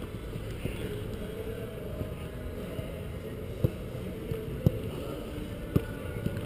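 Wind rumbling on the microphone, with three short sharp knocks about a second apart in the second half.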